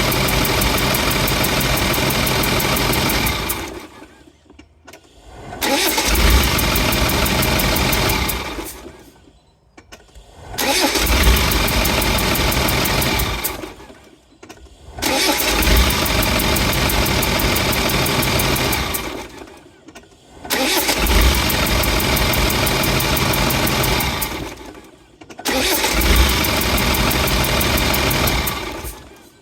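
Land Rover 300Tdi diesel engine noise: a rapid chuffing that comes in suddenly with a low thump, holds for three to four seconds, then fades away. This repeats five or six times, about every five seconds. The owner suspects a compression leak rather than an exhaust leak.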